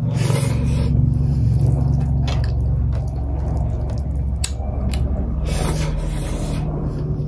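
Close-miked chewing and wet mouth sounds of rice and boiled mutton eaten by hand, with squishing as the fingers work rice on the plate. Short crackly bursts stand out about half a second in and again near six seconds, over a steady low hum.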